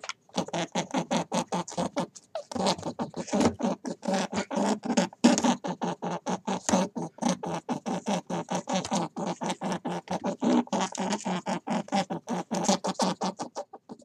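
Rabbits making a rapid train of short clicking strokes, about six a second. It breaks off briefly about two seconds in, then runs on and stops just before the end.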